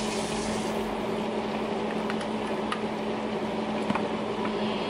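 A steady hum with an even hiss, and a few faint clicks.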